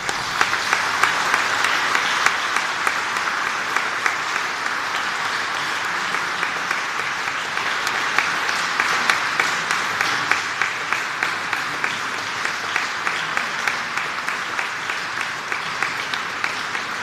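Audience applauding, a dense steady clapping that thins a little near the end.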